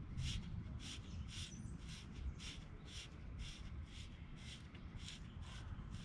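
SRAM DUB bottom bracket cup being turned by hand into the frame's threaded shell: a soft, rhythmic dry scraping about three times a second, one rasp per twist, dying away near the end.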